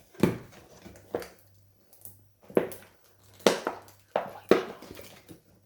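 Toy packaging being forced open by hand: a series of about six sharp cracks and crinkles with short pauses between them, as the tough packaging resists.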